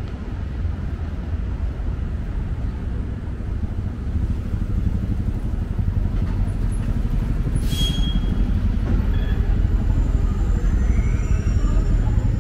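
City street traffic: a steady low rumble that grows louder, with a brief high squeal about eight seconds in and a faint rising whine near the end.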